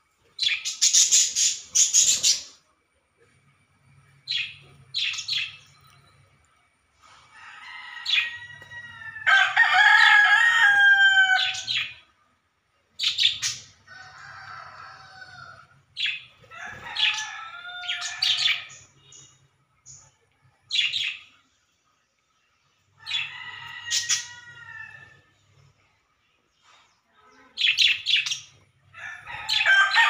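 Small caged parrots chirping in short high bursts, with a rooster crowing several times, its long falling calls the loudest sounds.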